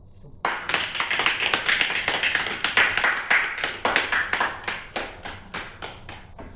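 Small audience applauding. Separate hand claps can be heard, starting suddenly about half a second in and thinning out and fading near the end.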